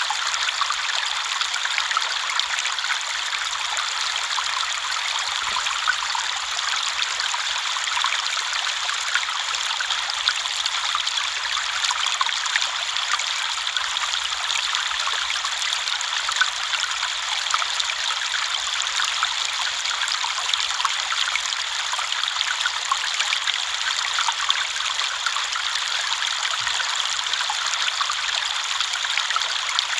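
River water flowing and burbling over stones, a steady rushing with constant small trickles and splashes.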